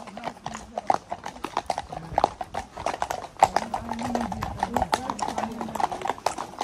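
Several horses' hooves clip-clopping on a tarmac road at a walk: an irregular, overlapping patter of hoof strikes.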